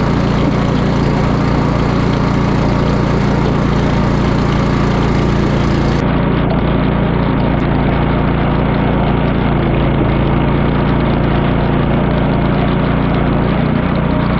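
Honda HSS928A tracked snowblower's engine running steadily at working speed.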